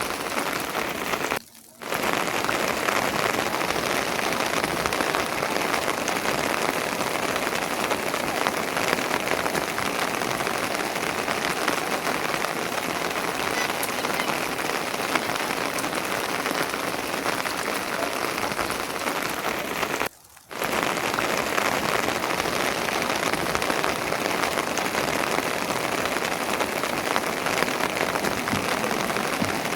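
Steady rain falling on a surface, a dense continuous hiss of drops. It cuts out twice for a moment, about a second and a half in and about twenty seconds in.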